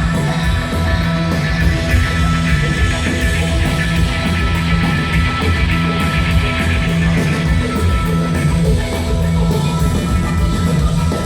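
Loud live rock music: heavily distorted fuzz guitars, bass and drums playing continuously.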